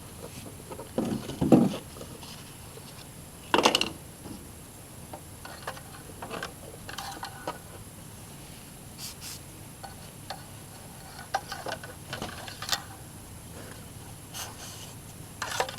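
Scattered clicks and knocks of things being handled, with louder thumps about a second in and again near four seconds.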